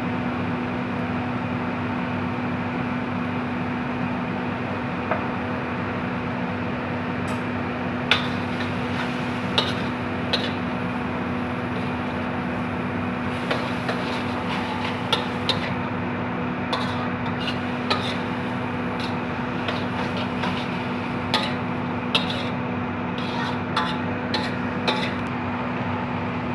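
Spatula scraping and clicking against an iron wok as vegetables are stir-fried, the clicks coming irregularly from about a third of the way in. A steady low hum runs underneath.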